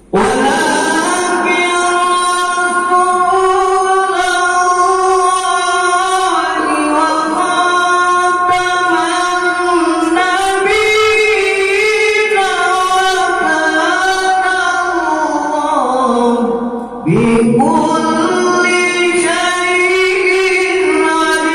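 A man singing a devotional Maulid chant into a microphone, heard through a loudspeaker, in long, drawn-out melodic phrases with held, wavering notes. The singing dips briefly and a new phrase starts abruptly about 17 seconds in.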